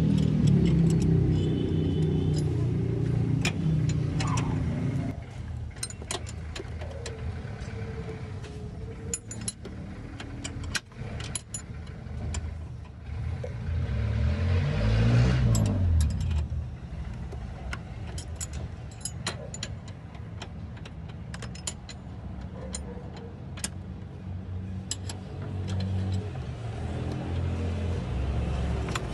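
Scattered metallic clinks and taps of hand tools on metal, with a low vehicle rumble that swells and fades about halfway through.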